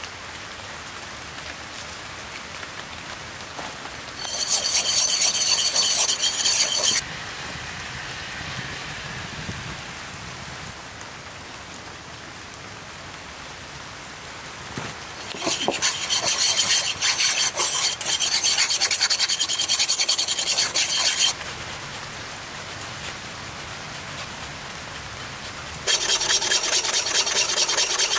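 Wire whisk beating egg yolk and oil against a ceramic bowl, emulsifying it into mayonnaise: three bouts of fast rhythmic scraping, the first about four seconds in, the second and longest about fifteen seconds in, the third near the end. A steady soft hiss fills the gaps between.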